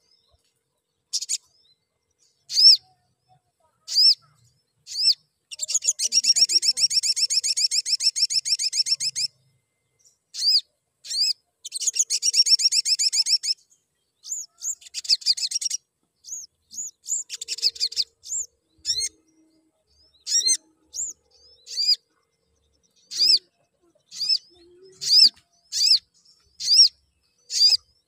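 Male olive-backed sunbird (sogon) calling: sharp, high single chirps, two fast rattling trills of a few seconds each in the first half, shorter trills after them, and a run of repeated chirps, a little over one a second, near the end.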